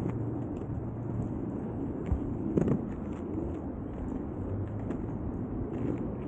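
Steady low rumble of small hard wheels rolling over asphalt, with a couple of brief knocks a little over two seconds in.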